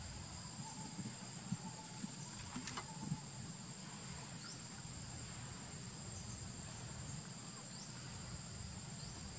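A steady chorus of insects: unbroken high-pitched trilling on two pitches, with a few faint ticks in the first three seconds.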